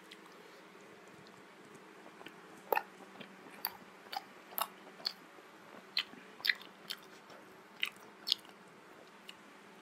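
Close-miked chewing of a steamed vegetable momo: a dozen or so short, sharp mouth clicks and smacks at irregular intervals, starting about three seconds in.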